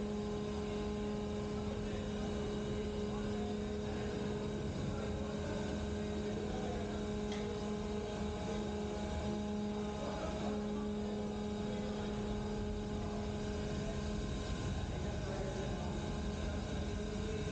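Steering gear room machinery on a bulk carrier running with a steady drone, with two steady hum tones over a broad mechanical noise.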